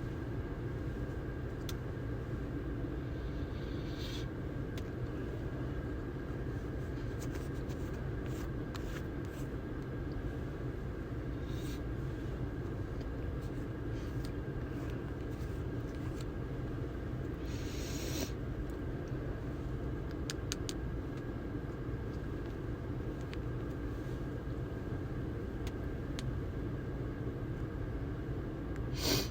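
Steady car cabin noise: low engine and road rumble with a faint steady whine. A few brief hissy sounds come through, and a short, sharp, louder sound comes about a second before the end.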